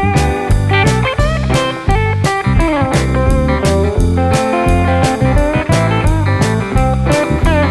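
Blues-style instrumental music with electric guitar playing bending, sliding lead lines over a steady drum beat.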